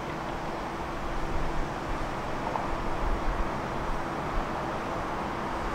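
Steady outdoor background noise beside a railway line: a low rumble with a faint, steady hum, and no train moving or crossing bell ringing.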